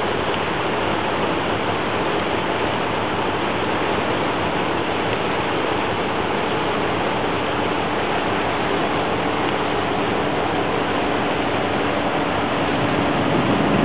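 A motor boat under way: steady rushing of water along the hull, with a faint, even engine hum underneath.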